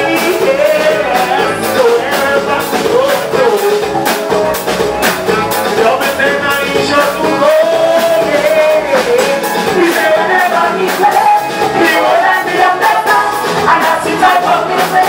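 Soca band playing live, with a singer's lead vocal over drums and band and a steady beat.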